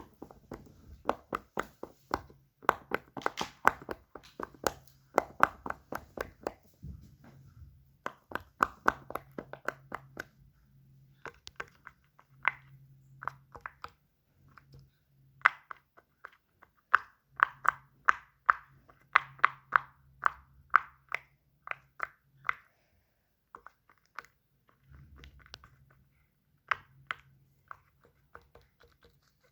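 Fidget toys being clicked and snapped by hand: bursts of sharp clicks, several a second, with short pauses between the bursts.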